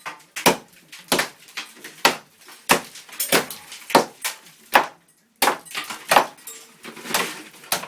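Steady hammer blows chipping away at a cinder block wall, about ten sharp strikes roughly every two-thirds of a second with a brief pause midway.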